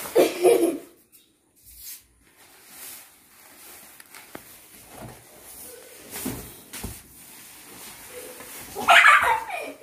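Soft rustling and scraping of a woven plastic floor mat as a kitten bites and tugs at its edge, with a few small knocks. A voice is heard briefly at the start, and a loud vocal burst comes near the end as the mat is lifted.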